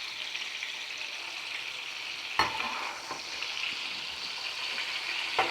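Red pepper and vegetables sizzling in hot oil in a frying pan, with two sharp knocks about two and a half seconds in and near the end as the fried vegetables are stirred and scooped out.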